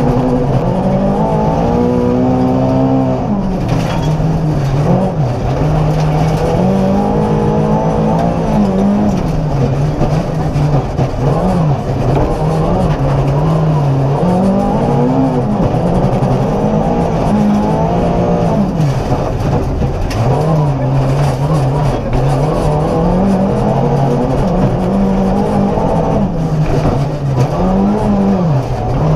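Volvo 240 rally car's engine driven hard on a special stage, its pitch climbing and dropping again and again as it revs out through the gears and comes off for corners.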